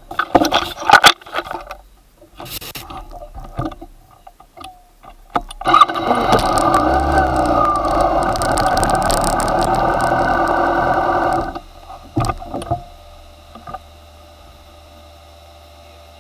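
Knocks and rustles of handling at first. Then, about six seconds in, a motorcycle engine running loudly and steadily for about six seconds before cutting off suddenly, followed by a couple of knocks and a faint steady hum.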